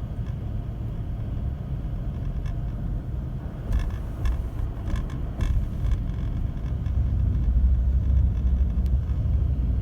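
Car driving along a road: steady low engine and road rumble, with a few light clicks about four to five seconds in. The rumble grows louder about seven seconds in.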